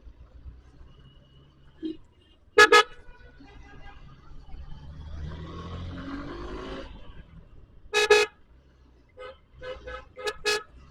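Vehicle horns honking in street traffic: a loud double beep, another beep later, then a quick run of short toots near the end. In between, an engine rises in pitch over a low traffic rumble.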